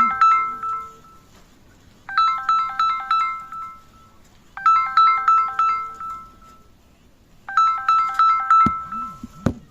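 Smartphone incoming-call ringtone: a short phrase of quick, bright chiming notes that fades out, repeating about every two and a half to three seconds. Two sharp clicks come near the end.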